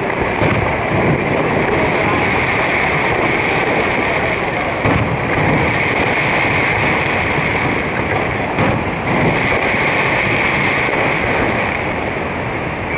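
Steady roar of falling water from Niagara Falls, with a few short firework bangs from the display breaking through it.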